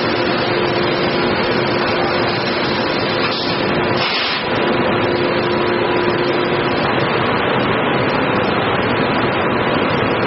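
Pulp-molding tray production line running: a steady, dense machine noise with a constant hum. About four seconds in the noise briefly changes, then carries on the same.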